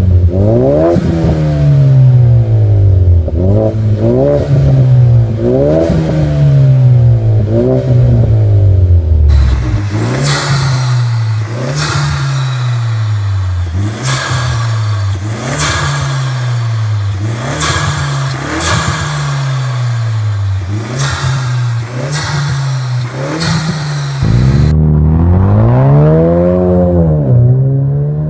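Ford Mustang 2.3 L turbocharged four-cylinder with a full turboback aftermarket exhaust, revved over and over at standstill, each rev climbing and falling back every second or two. About nine seconds in, the sound switches to the engine bay: the revs go on, now with a sharp hissing rush of air through the open K&N cone intake on each one. Near the end the engine pulls in one long rising rev, then eases off.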